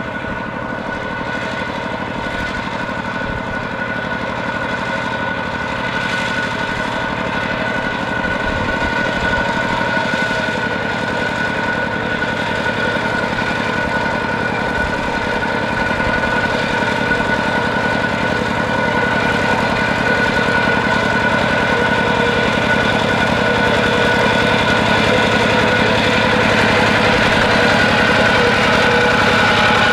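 Kubota ZT120 single-cylinder diesel engine on a two-wheel walking tractor, running steadily under load while ploughing a muddy paddy. It grows gradually louder as the tractor comes closer.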